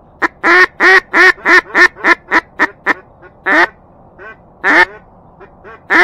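Duck call blown by a hunter in mallard quacks, meant to draw in ducks flying past. A run of about ten loud quacks comes at roughly three a second, then a few spaced single quacks and softer short ones.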